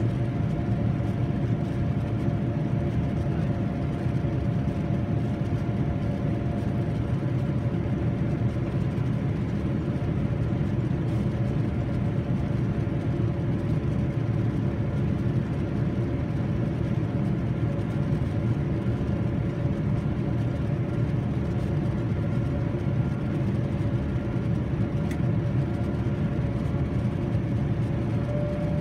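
Steady cabin noise inside a Boeing 787-9 during the climb after takeoff: a constant low rumble of airflow and the GEnx-1B turbofan engines, with a few faint steady hum tones over it.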